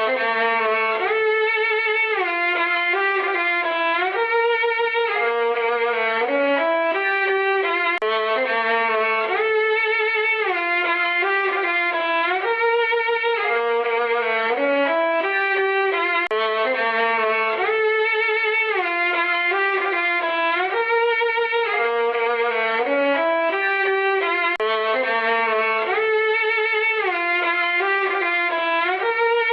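Sad solo violin music: a slow melody with sliding notes, the same short phrase looping about every eight seconds.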